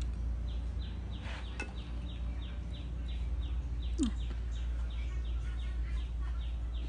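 A long, regular series of short, high, falling peeps from a small animal or bird, about three a second, over a low steady hum, with one brief lower falling squeak about four seconds in.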